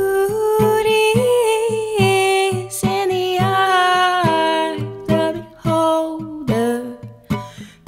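Background song: a voice singing long, held, wordless notes over plucked strings that keep a steady pulse.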